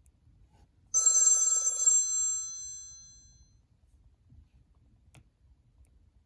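A Cingular 8525 Pocket PC ringtone: a single bell-like ring starting about a second in and lasting about a second, its high tones ringing on and fading away over the next two seconds.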